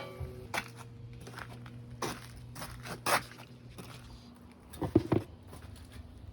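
Scattered knocks, scrapes and rattles of dryer parts and tools being handled during disassembly, with a double clatter about five seconds in. A faint steady low hum runs underneath and stops a little after four seconds.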